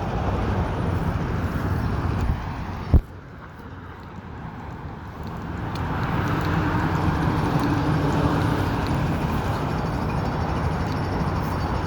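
Road traffic on a busy city street: vehicles passing, with a single sharp knock about three seconds in, after which the noise drops before another vehicle swells up and goes by.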